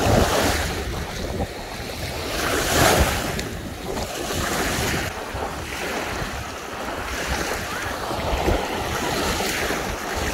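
Small lake waves washing up over a sandy shore in the shallows, swelling and fading every couple of seconds, the biggest about three seconds in. Wind buffets the microphone.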